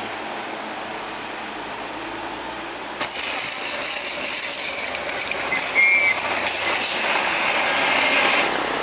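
A steady hiss, then about three seconds in it cuts to a heavy truck rolling slowly past close by, with rattling, clicking mechanical noise and tyre noise.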